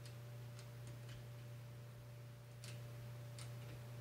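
Faint, irregular light clicks from a torque screwdriver turning the Torx screws of the scope-ring caps as they are eased down evenly, over a steady low hum.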